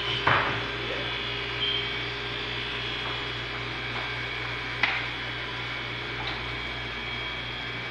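Steady low electrical hum with a faint steady higher tone, broken by a couple of brief clicks, one just after the start and one about five seconds in.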